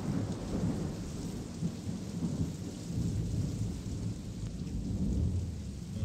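Thunderstorm sound: a low rolling rumble that swells and fades over a steady rain-like hiss.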